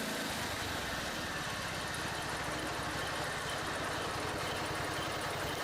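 Kohler Command 14 single-cylinder engine running steadily at an even speed with its freshly overhauled carburetor back on.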